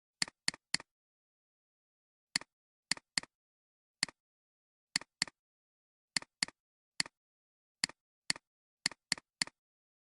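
A series of about eighteen sharp, isolated clicks with silence between them, some single and some in quick pairs or triples about a quarter of a second apart.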